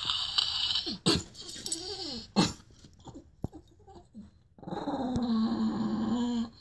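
Chihuahua growling from inside a plastic pet carrier: short, wavering growls in the first two seconds with a couple of knocks, then one long steady growl near the end.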